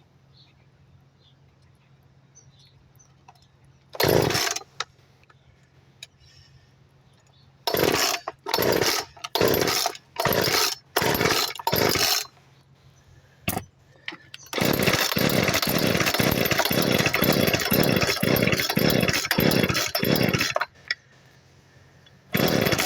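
Craftsman two-stroke chainsaw being pull-started: a string of short starter-cord pulls, then the engine catches and runs roughly with a pulsing beat for about six seconds before cutting out. It is running on a fuel mix with far too much oil in it.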